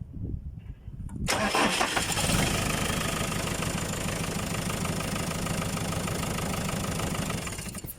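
JCB backhoe's diesel engine cranking on the starter, catching about a second in, running steadily, then cutting out near the end. This is a backhoe that keeps stalling, which the mechanics put down to an airlock in the fuel system.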